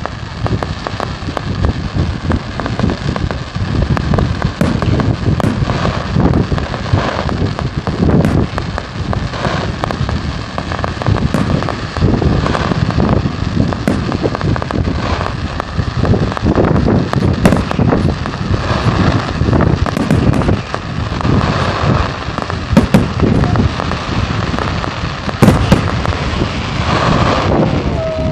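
A fireworks display: a dense, continuous rattle of crackling and popping from ground fountains and aerial shells, with many sharp bangs.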